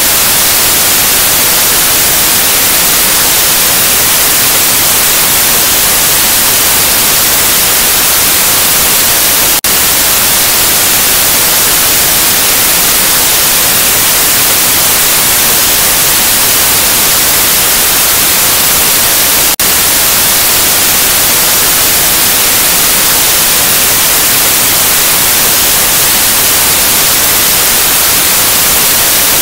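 Television static: a loud, steady hiss of analog TV snow, brightest in the treble. It breaks for an instant twice, about ten seconds apart.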